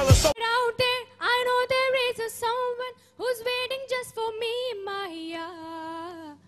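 A young woman singing solo into a microphone in long, held melodic notes, with short breaks about a second in and near three seconds, stepping down to a lower held note near the end. A loud hip-hop music clip cuts off just as it begins.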